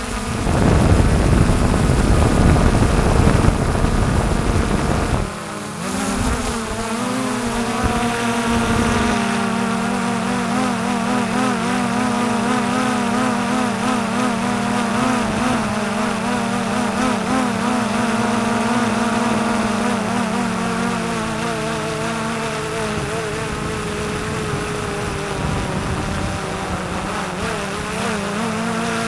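Xiaomi quadcopter drone's propellers buzzing steadily, the pitch wavering slightly as it hovers and drifts. A heavy low rumble, wind on the microphone, covers the first five seconds.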